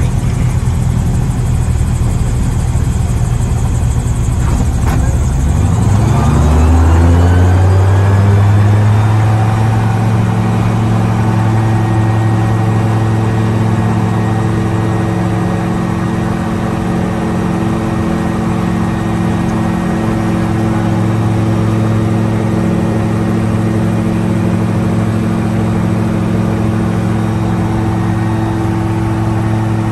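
Magni M24 Orion gyroplane's engine heard from the cockpit, rising in pitch about five to seven seconds in as it is brought up to takeoff power, then running steadily at high power through the takeoff roll and liftoff.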